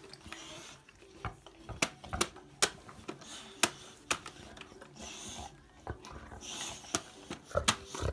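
Boxer dog sniffing around a baby in short noisy breaths, with several sharp taps and clicks of small hands on a plastic activity toy.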